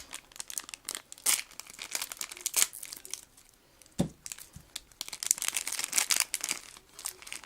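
Plastic blind-bag packet being torn open and crinkled by hand, in two spells of crackling separated by a short pause with a dull knock.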